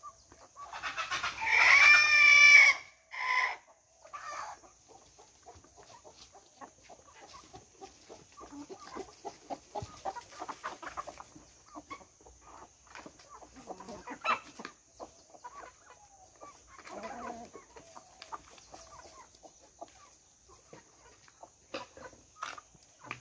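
Free-range chickens: a rooster crows once, loudly, about a second in, followed by a short call. Then hens cluck softly among scattered small clicks, with another burst of calls later on.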